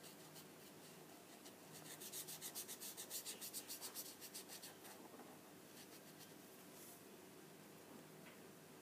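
Faint scratching of a marker tip rubbed quickly back and forth on paper while colouring in, several strokes a second, busiest a couple of seconds in and dying away about halfway through, with a few light strokes later.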